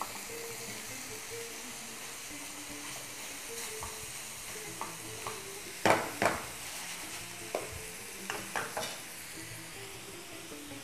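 Minced meat and onions sizzling in a frying pan as they are stirred with a wooden spoon, the spoon knocking against the pan a few times, loudest twice about six seconds in.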